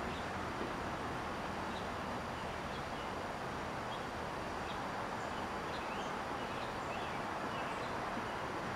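Steady outdoor background noise, an even rumble and hiss, with about a dozen faint, short, high bird chirps scattered through it.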